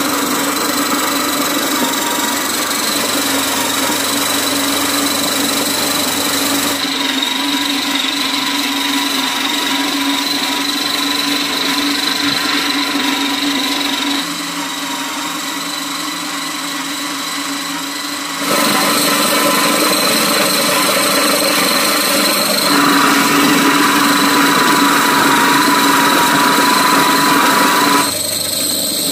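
Small electric grain mill running steadily with a constant high whine as it grinds dried corn kernels into meal. Its loudness steps down and back up a few times.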